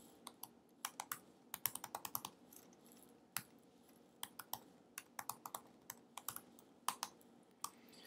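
Typing on a computer keyboard: irregular runs of quick keystrokes, with a brief lull midway.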